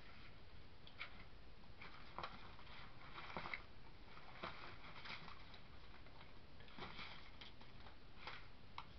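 Faint, irregular light clicks and rustles from hands handling things at a work table, over a steady low hiss.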